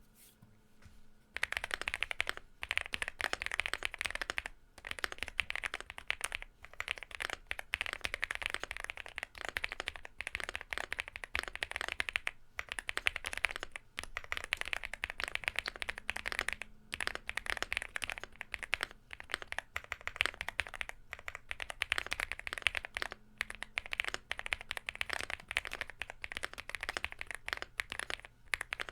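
Fast typing on a Womier SK75 mechanical keyboard fitted with Epomaker Bluebird switches: a dense, continuous clatter of keystrokes starting about a second in, broken by a few brief pauses.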